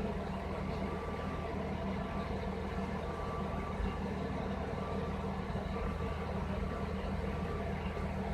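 Audi A6 C4's 2.6-litre V6 (ABC) idling steadily with its electric radiator cooling fans running, switched on by the hot coolant at operating temperature.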